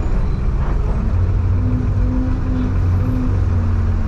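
Bus engine running steadily with road noise as the bus moves; the low engine hum grows stronger about a second in and holds.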